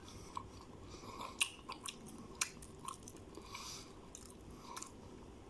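A person chewing a mouthful of pizza, soft chewing with scattered sharp little clicks of the mouth and crust.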